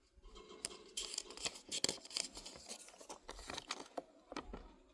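Victorinox pocket knife blade slicing through paper in a run of irregular crinkling, tearing cuts: a sharpness test of the freshly sharpened edge.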